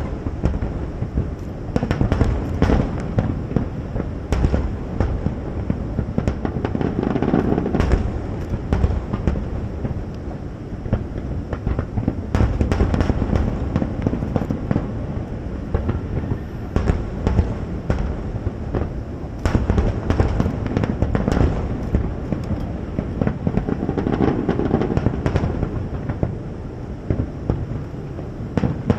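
Aerial fireworks display: a dense, continuous barrage of shell bursts, with sharp crackling reports over a rolling low rumble.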